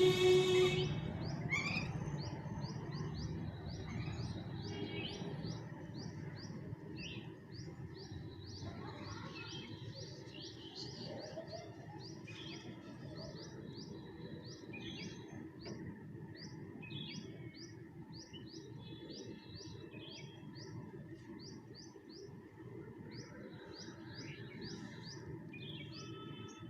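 Birds chirping continuously in short, quick rising chirps, about two a second for much of the time, over a low steady background hum. A louder harsh call comes right at the start.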